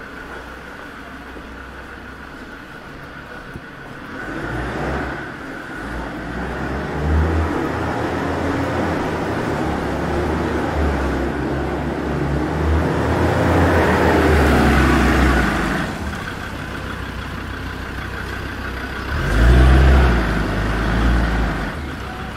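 Cars driving past on a street, engine rumble swelling and fading as each goes by: a long, loud stretch through the middle and another close pass shortly before the end, with a steady high whine underneath.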